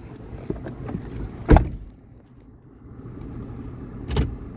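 Steady low hum inside a car with its engine running, broken by two sharp knocks, one about a second and a half in and one near the end.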